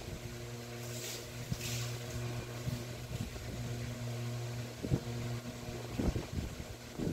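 Steady low machine hum with a few evenly spaced tones above it, and two brief soft hisses about a second in.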